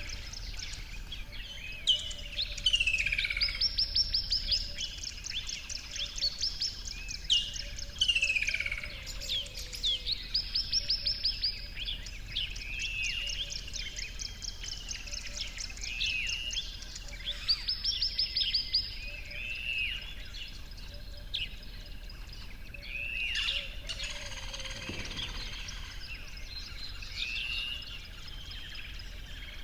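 Several birds singing and calling. One repeats a fast, high trilled song three times about seven seconds apart, while others give short arching chirps throughout.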